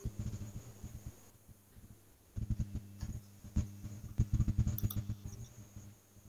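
Computer keyboard typing in two quick bursts of keystrokes: a short one in the first second and a longer, denser one from about two and a half seconds in to about five and a half.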